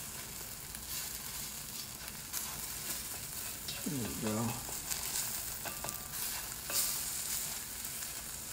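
Scrambled egg sizzling in hot oil in a seasoned cast iron wok, with a steady frying hiss, while a spatula stirs and pushes it around, scraping and tapping against the iron now and then.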